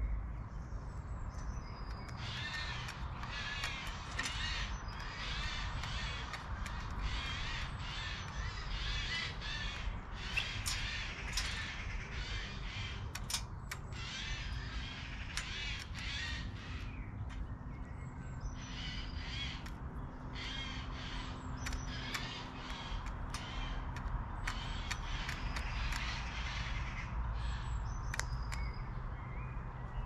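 Magpie giving harsh chattering calls, short rapid calls repeated in bursts, with a brief lull about halfway through.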